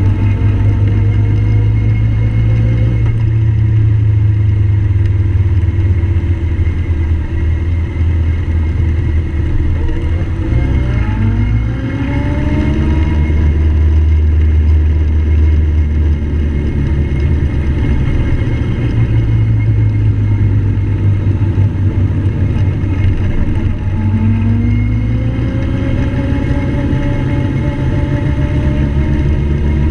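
Motorcycle engine running at road speed, its pitch rising twice as it pulls through the gears, about a third of the way in and again near the end.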